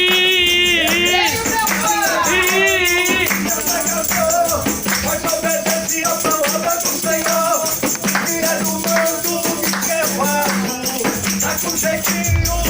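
Church worship music: a singing voice over hand percussion rattling steadily on the beat, with the singing strongest in the first few seconds.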